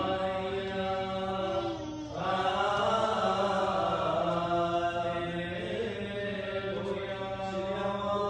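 Liturgical chant: a melody sung in long, slowly moving held notes over a steady low drone, with a brief break about two seconds in.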